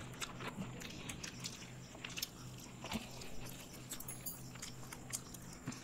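Faint chewing, biting and mouth smacks of people eating soft Indian sweets, heard as scattered short clicks.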